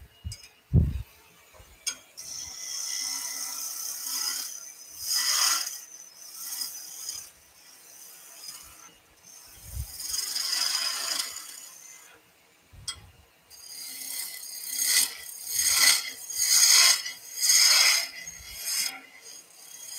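Skew chisel cutting a spinning wooden blank on a woodturning lathe, rolling a round-over: a series of rasping cuts, longer passes in the middle and quicker repeated ones about once a second near the end. A couple of short knocks near the start.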